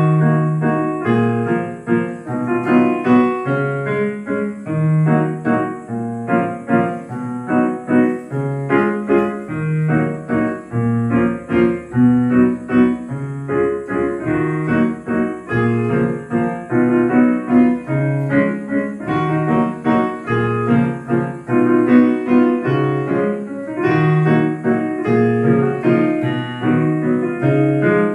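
Casio CT-X9000IN keyboard played on its Mellow Piano voice: a melody over chords with a repeating bass line.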